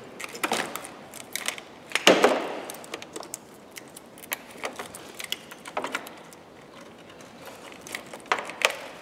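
Scattered clicks and taps of hands working on hoses and fittings atop a diesel engine, with a louder knock about two seconds in.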